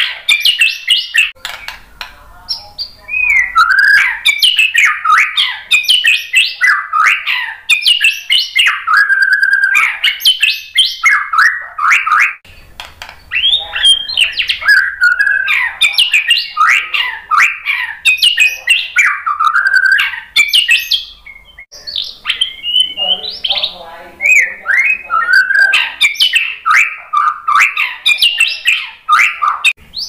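White-rumped shama singing almost without pause: a fast run of varied whistled phrases with quick up-and-down sweeps, broken by brief gaps about twelve and twenty-one seconds in.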